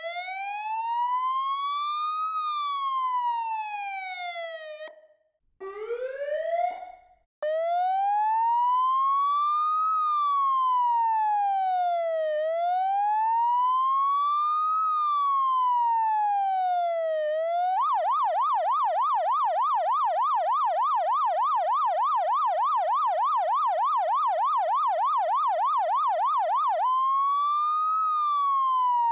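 Emergency vehicle siren in wail mode, its pitch sliding slowly up and down over about five seconds a cycle. It cuts off suddenly about five seconds in, gives a brief rising whoop, and resumes the wail. Partway through it switches to a fast yelp of about four warbles a second for roughly nine seconds, then goes back to the slow wail.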